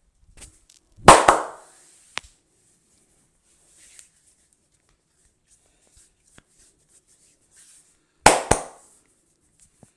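Barber's open-hand slaps in a head massage: two loud double slaps, one about a second in and one near the end, with a single sharp click in between.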